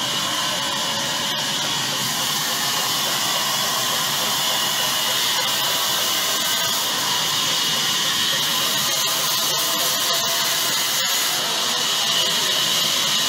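Large log band saw running steadily: an even, high-pitched rushing noise that holds constant, with a few faint clicks about three-quarters of the way through.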